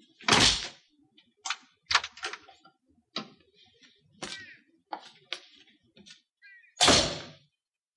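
Heavy wooden door thuds twice, once just after the start and again near the end, with lighter knocks and clicks between.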